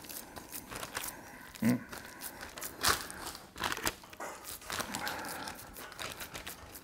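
Paper crinkling and rustling under hands pressing and turning a large raw ground-beef meatloaf, with soft squishing handling sounds and a dull thump nearly two seconds in.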